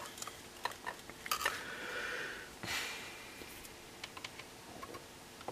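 Small clicks and rustling of wires and an alligator clip being handled while the antenna lead is reconnected to the coil of a homemade transistor radio, with a short stretch of hiss around two seconds in and a brief noise burst just before three seconds.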